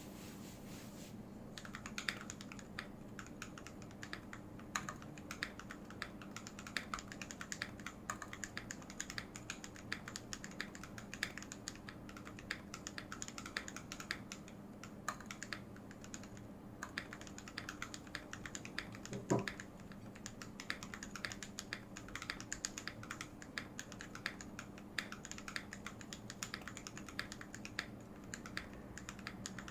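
Typing on a KBD68 mechanical keyboard with Gateron Clean switches fitted with Cherry MX Silent Red stems and 35 g springs, under XDA Canvas keycaps: a steady run of keystrokes starting about a second and a half in, with one louder knock about two-thirds of the way through.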